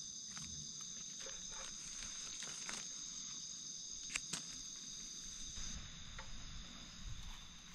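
A chorus of night insects trilling steadily at several high pitches at once. Over it, dry leaf litter crackles and rustles with scattered clicks as mushrooms are pulled up and handled, with one sharp click about four seconds in.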